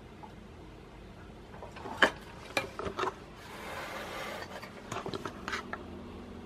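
Handling noise on a metal fluorescent strip-light fixture: a few sharp clicks and knocks, a second of rubbing, then more small clicks, over a faint steady hum.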